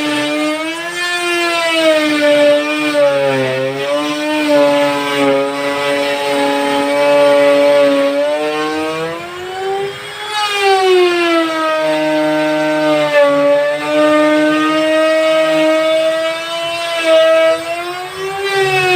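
Electric router motor whining at high speed while cutting through plywood, its pitch sagging and recovering a few times as the bit takes load.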